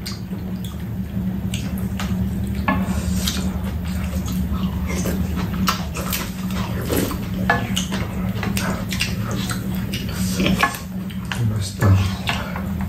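Spoons and chopsticks tapping and scraping against ceramic bowls and a shallow pan as two people eat, in short, irregular clicks, over a steady low hum.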